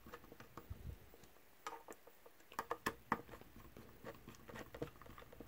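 Faint, irregular small clicks and ticks as a precision screwdriver turns the cover screws snug into the plastic body shell of a DJI Mavic Pro drone, with the hands handling the shell.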